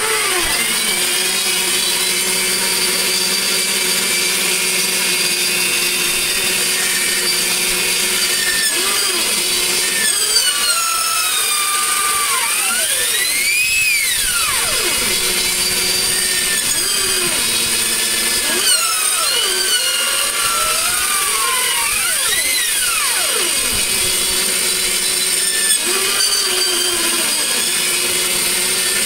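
Small benchtop band saw running and slowly cutting through a block of wood: a steady mechanical whine made of several tones. A few times, around the middle and again later, some of the tones glide up and back down in pitch.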